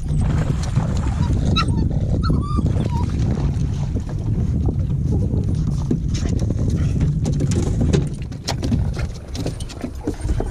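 A small dog on a boat deck giving a few short high yips about two seconds in, excited by a bass being landed, over a steady rumble of wind on the microphone, with scattered knocks later on.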